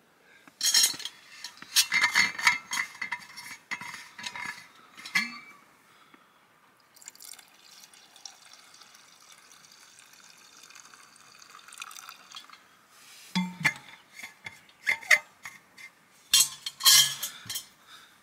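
Water poured from a vacuum flask into an enamel mug for coffee: a steady pour lasting about five seconds in the middle. Before and after it, clinks and clatter of the flask and mug being handled.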